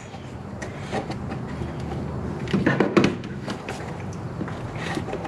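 Clicks and knocks from a spill-free coolant funnel's adapter being fitted and tightened onto a radiator filler neck, with a cluster of louder knocks about halfway through, over a steady low hum.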